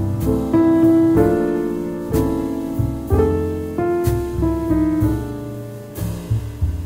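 Background music led by piano: chords and notes struck and left to fade, over a low bass line.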